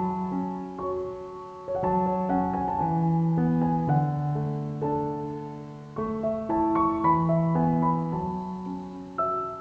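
Background music: a slow piano melody of held notes that fade away, with a new phrase starting about every four seconds.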